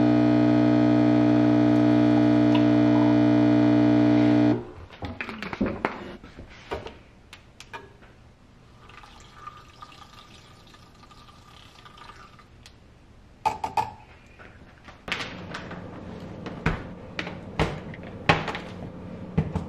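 Nespresso coffee machine brewing, a loud steady buzzing hum that cuts off about four and a half seconds in. After it come quieter clicks and knocks of kitchen handling, and a handheld milk frother whirring faintly for about three seconds in the middle.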